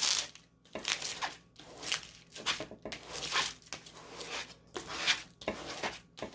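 Plastic packaging crinkling and rustling as it is handled, in a string of short, irregular crackles.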